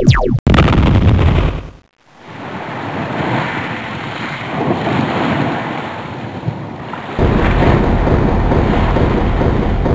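Sound-effect track of rushing, surf-like noise. It opens with a quick falling whistle and a loud rushing burst that cuts off after about two seconds. The rushing then swells back in and grows louder and deeper about seven seconds in.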